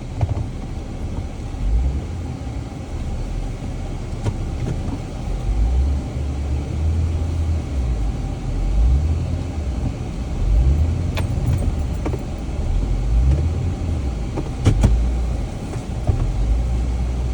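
Jeep running at low speed on a rough, muddy trail, its engine rumble rising and easing as it manoeuvres, with a few knocks from the vehicle body.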